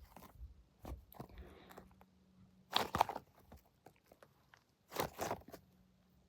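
A soft foam cheese-shaped squishy toy being squeezed and handled by hand, with scattered light clicks and crackling bursts about three seconds in and again about five seconds in.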